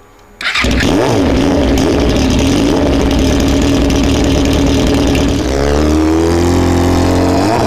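2002 Yamaha YZF-R6's inline-four engine running through an aftermarket FRT Stealth short exhaust. It comes in loud about half a second in, dips briefly after about five seconds, then climbs and is revved up sharply near the end.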